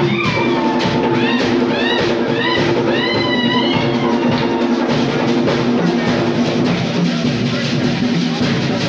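Live drumming by a traditional dance troupe's drummers, a steady dense beat with held sung tones underneath. In the first few seconds a run of short shrill rising-and-falling calls, about two a second, rides over the drums.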